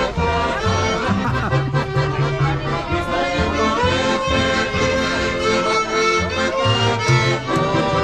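Accordion-led folk music with a pulsing bass line.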